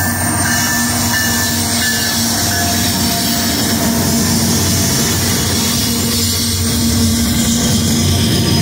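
A train rolling past close by: a loud, steady rumble of wheels on the rails, with a thin, high wheel squeal over it.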